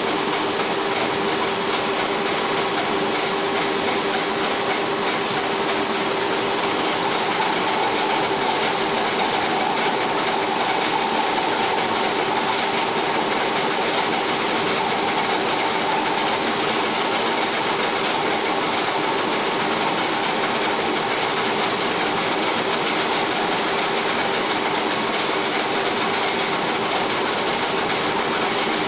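1K62 engine lathe running, its geared headstock giving a steady mechanical running noise with a constant tone under it.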